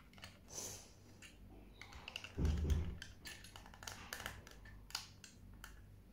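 Light clicking and tapping of small toy cars and plastic packaging being handled, with one dull thump about two and a half seconds in, the loudest sound.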